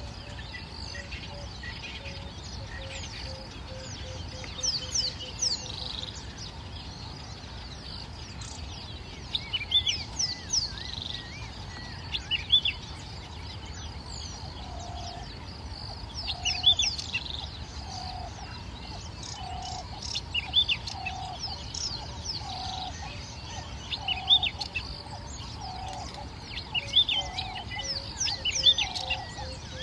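Wild birds calling in the bush: clusters of high chirps and whistled up-and-down notes every couple of seconds, joined from about halfway by a lower note repeated roughly every second and a half, over a steady low background rumble.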